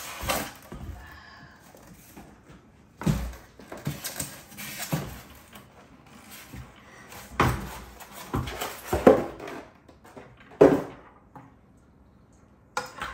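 Handling noise from unpacking a stand mixer: a foam packing insert scraping and knocking as it is pulled off the mixer's head and bowl, with bumps against the countertop. The noises come in irregular knocks and scrapes a second or more apart.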